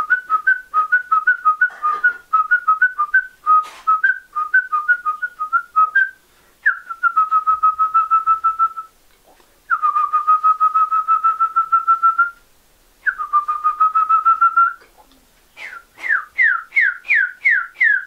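A man whistling an imitation of a solitary tinamou (macuco) call. It opens with a quick two-note warble for about six seconds, then three long, finely quavering whistles of about two seconds each. Near the end comes a run of short notes, each sliding down in pitch, about two a second.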